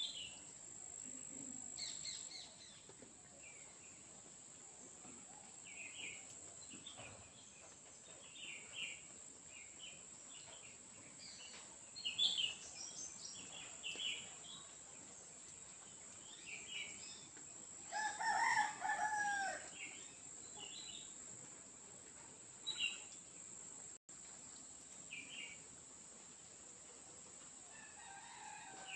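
Many short bird chirps and calls scattered throughout, over a steady high insect drone. A little past the middle a rooster crows once, the loudest sound.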